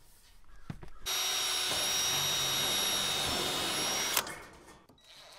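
Cordless drill running steadily for about three seconds as it drives into the metal siding, then stopping abruptly.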